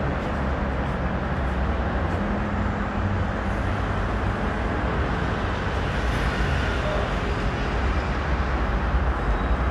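Steady rumble of road traffic beside an elevated railway, with a Docklands Light Railway train approaching from a distance, the sound growing a little louder near the end.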